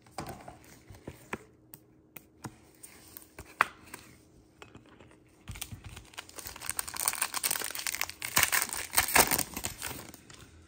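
Light clicks and taps of trading cards being handled, then from about five and a half seconds in a dense crinkling as a trading card pack's wrapper is torn open.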